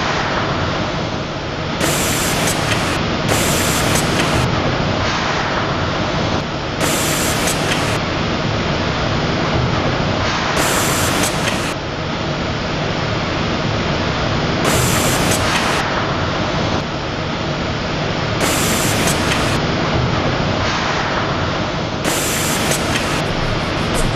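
Packaging-line machinery running with a steady, noisy whir, broken about every four seconds by a brief, brighter hiss as the machine cycles.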